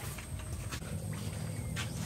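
A few faint clicks and knocks from eggs being handled at a steel bowl, over a steady low hum.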